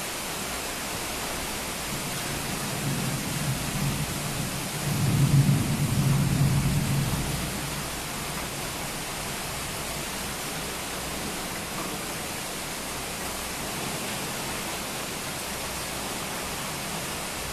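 Steady hiss of heavy rain with a roll of thunder that builds after a couple of seconds, rumbles loudest around the middle, then dies away, leaving the rain.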